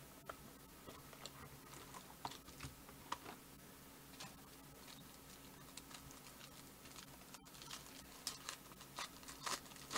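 Foil wrapper of a Topps Strata football card pack crinkling and tearing as it is handled and opened by hand: faint, scattered crackles and clicks that come more often near the end.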